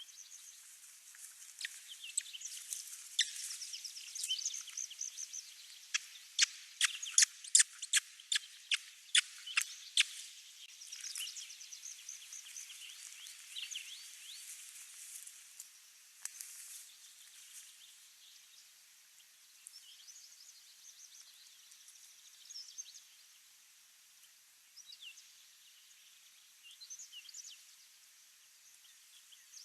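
Small birds chirping in high, short notes. About six to ten seconds in comes a quick run of a dozen or so sharp, loud ticks, and after that the chirps are sparser and fainter.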